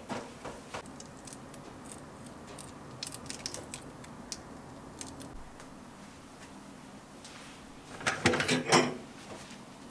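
Light scattered ticks of pearl salt grains dropped by hand onto dough rolls on a metal baking tray, then about eight seconds in a short, louder clatter as the metal baking tray is taken hold of and moved.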